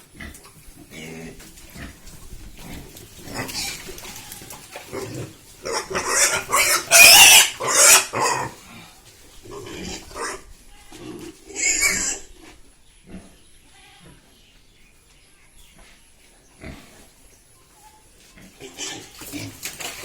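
Pigs grunting, with a loud burst of shrill cries about six to eight seconds in and a shorter one near twelve seconds.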